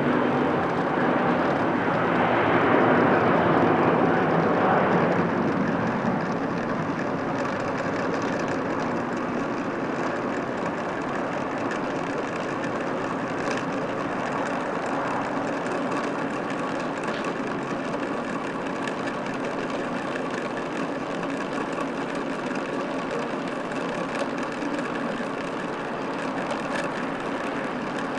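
Airbus A350-941 airliner's Rolls-Royce Trent XWB jet engines at takeoff power: loudest in the first few seconds, then easing to a steady, more distant rumble as the aircraft climbs away.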